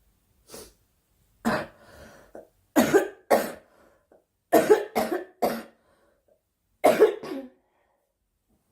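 A girl coughing repeatedly in short bouts: a single cough, then pairs and a run of three quick coughs, with brief pauses between bouts.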